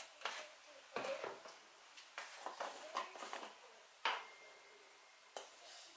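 Scattered light clicks and knocks of a teaspoon and spice containers being handled while spices are measured out into a plastic mixing bowl. The loudest knock, about four seconds in, leaves a faint ring.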